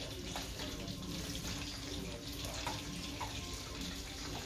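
Minced garlic sizzling in clarified butter in a small frying pan: a steady hiss with a few faint pops.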